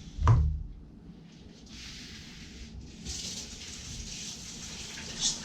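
Water running from a kitchen tap, first in a short burst and then steadily from about halfway through, as a cutting board and fish fillets are rinsed. A dull thump comes just after the start.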